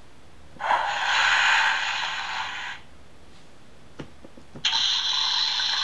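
Electronic children's sound book's small speaker playing two short, hissy sound effects, the first about two seconds long and the second starting about four and a half seconds in, with clicks of its plastic buttons being pressed just before the second.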